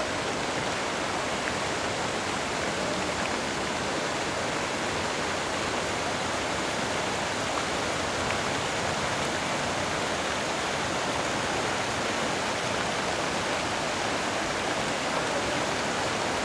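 Ornamental fountain with many arcing jets and a tall central spray, the water splashing into its pool as a steady, unbroken rush.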